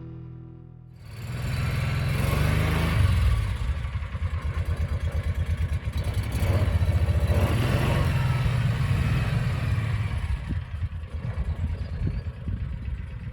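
A motor vehicle engine starts to be heard about a second in and keeps running, with a quick pulsing in its loudness.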